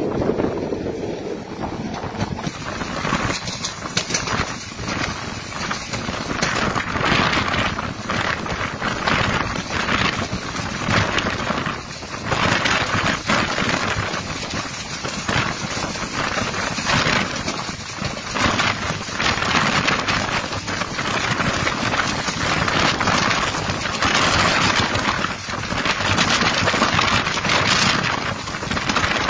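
Wind blowing hard across the microphone of a phone held at the open door of a moving passenger train, with the train's running noise underneath; the noise swells and eases irregularly with no let-up.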